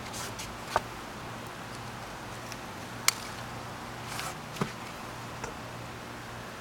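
A few sharp clicks and a soft rustle as a hand handles bell pepper plants and takes hold of a pepper, over a steady low hum.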